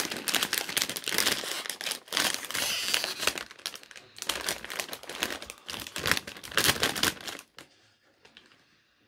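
Doritos crisp bag (metallised plastic film) crinkling and crackling loudly as it is handled and pulled open at the top seal. The crinkling stops about seven and a half seconds in as the open bag is held still.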